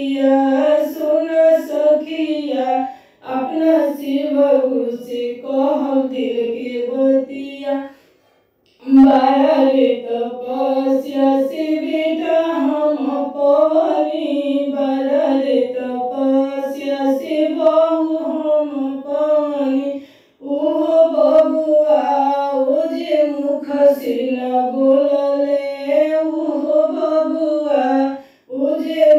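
Female voice singing a Bhojpuri Shiv charcha devotional folk song (bhajan), pausing briefly between lines, with the longest pause about eight seconds in.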